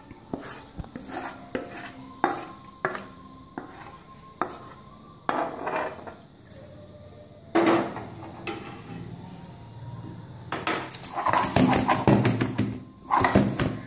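Flat metal spatula scraping and knocking against a heavy pan and a steel plate as thick, sticky seven-cup cake mixture is scraped out. It starts as a series of sharp knocks about two a second, with a few louder strikes after that and a denser run of scraping near the end.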